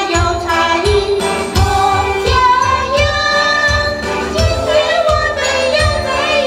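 A woman singing a song into a handheld microphone over a recorded backing track with a steady beat.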